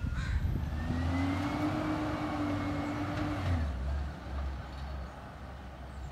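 Labrie garbage truck's engine revving with a slowly rising whine over the low rumble. The whine stops and the sound drops off about three and a half seconds in as the truck moves off down the lane.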